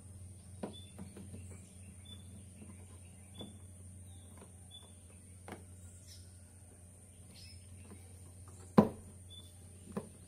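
Scattered clicks and light knocks of a rubber door-window weatherstrip being pressed and snapped by hand onto the door's window frame, with one sharp knock near the end. Short bird chirps are heard in the background.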